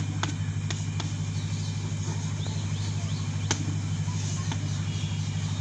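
Chalk tapping and scratching on a blackboard as a word is written, a few sharp taps among lighter strokes. Under it runs a steady low hum.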